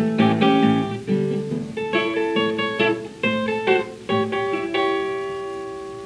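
Solo acoustic guitar playing the closing bars of a 1931 country blues 78 rpm record: a run of picked notes, then a final chord left to ring and fade away.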